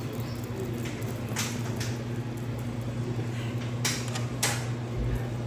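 Table knife cutting through a thin-crust pizza and scraping on the metal pizza pan, a few short rasping strokes with the loudest two near the middle, over a steady low hum.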